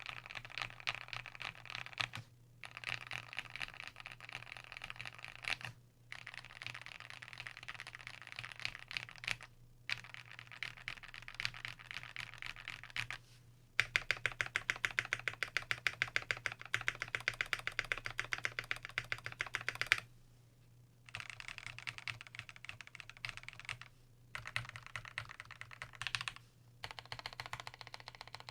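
Fast typing on a custom mechanical keyboard with lubed Everglide Aqua King V3 linear switches, a brass plate and GMK keycaps: rapid keystroke clacks in runs broken by short pauses. The loudest, fastest run comes about halfway through, followed by a pause of about a second.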